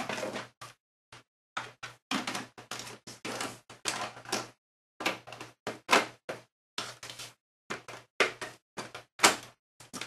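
Side panel of a Compaq Evo D51U desktop computer case being slid and pressed back onto the chassis: a run of scrapes, knocks and clicks, with the sharpest knocks just at the start and about nine seconds in.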